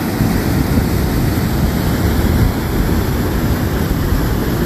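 Whitewater of the Merced River rushing through a granite chute at the brink of Nevada Fall: a loud, steady rush of water.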